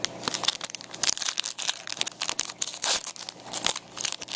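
Foil trading-card pack wrappers crinkling and tearing as a pack is handled and opened, a run of irregular crackles.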